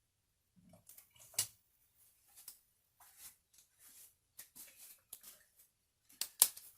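Light handling noises of a PVC part being turned over in the hands: scattered small taps, clicks and rustles, with a sharper knock about a second and a half in and the loudest knock near the end.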